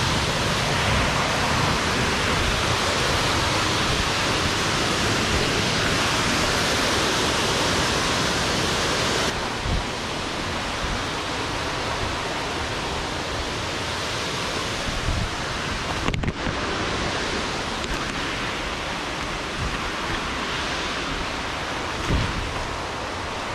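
Steady rushing of a waterfall. About nine seconds in it turns abruptly quieter and duller. A few brief low thumps come through, the loudest near the end.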